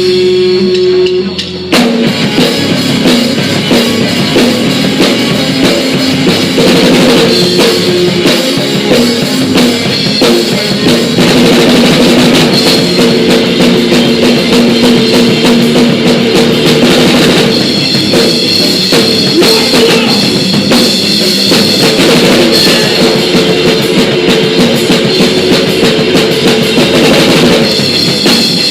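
Live rock band playing loudly, with a drum kit (kick and snare) driving under electric guitar. The band drops out to a single held note about a second in, then comes back in full.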